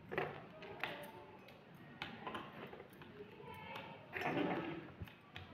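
Faint, indistinct voices, with a few light clicks and taps from small metal beads and a needle being handled.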